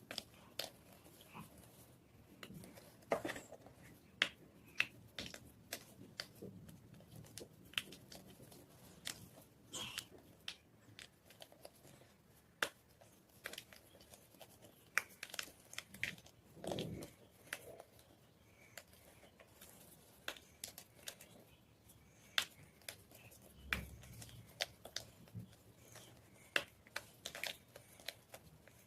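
White gym chalk (magnesium carbonate) being crunched: irregular sharp cracks and crumbly snaps, with a few duller thuds.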